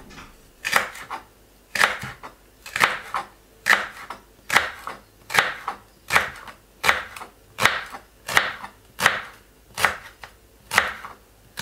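Kitchen knife slicing a celery stalk on a wooden cutting board: about a dozen sharp, evenly spaced cuts, a little more than one a second.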